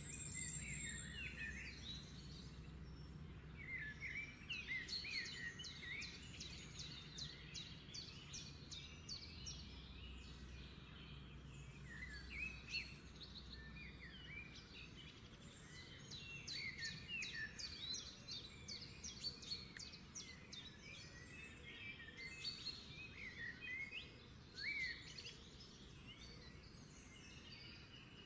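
A chorus of small birds chirping and twittering, many quick high chirps overlapping, over a low steady background hum.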